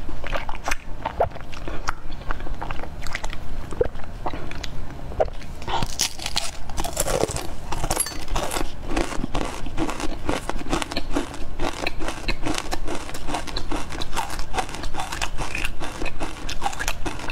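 Close-miked biting and chewing of ice cream in a dark wafer cone: many irregular crisp crunches of the wafer, with soft wet chewing between them.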